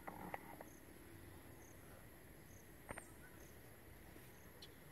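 Faint insect chirping: a steady high buzz with a short, high chirp about once a second. A few soft clicks come near the start and one sharper click about three seconds in.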